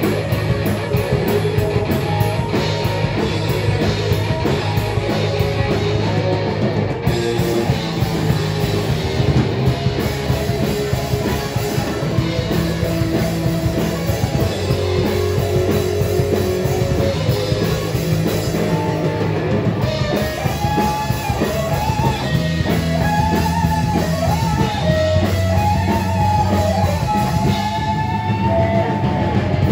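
Metal band playing live: distorted electric guitars over bass and drum kit, a steady driving riff. From about twenty seconds in, a higher melody line with bending notes rises over the riff.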